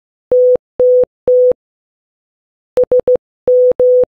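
Morse code beeps spelling SOS, the international distress signal. Three evenly spaced dots end one slow SOS. After a pause of about a second, a faster SOS begins with three quick dots and three longer dashes.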